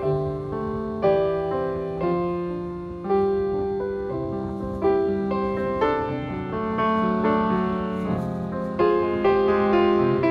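Background piano music: a melody over chords, notes struck and left to fade.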